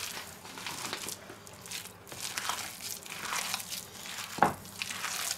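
Hands kneading a moist, crumbly apple, marzipan and oat-flake mixture in a stainless-steel bowl: irregular squishing and rustling, with one sharper sound a little after four seconds in.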